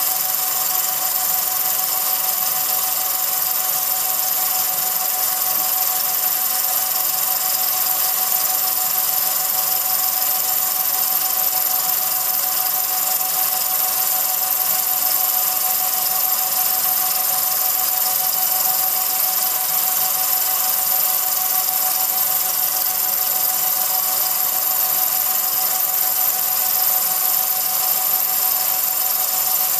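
Film projector running: a steady mechanical whir with a constant mid-pitched whine and a high hiss, unchanging throughout.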